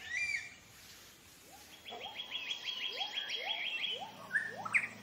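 Forest birds calling: a short whistled call, then a fast run of about a dozen high repeated chirps at roughly eight a second, with short rising notes beneath and a few sharp chirps near the end.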